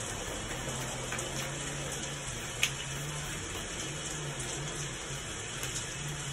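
Steady hiss of heavy rain from a played-back thunderstorm-and-rain recording, with one short sharp click about two and a half seconds in.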